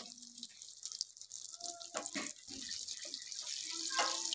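Water running steadily, with a few short knocks.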